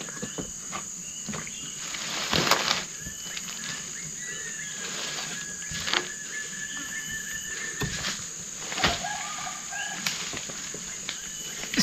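Tropical forest ambience: a steady high-pitched drone of insects, with a thin steady tone held for about four seconds mid-way and a few scattered thuds and rustles, the loudest about two and a half seconds in.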